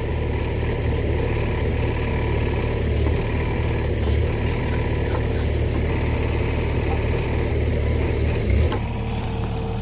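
Excavator engine running steadily with a low hum. A little before the end the sound thins out, losing its higher part while the low hum carries on.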